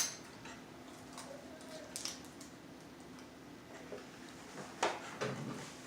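Quiet room with a faint steady hum and a few small, sharp clicks and taps, one near the start, one about two seconds in and one just before the end.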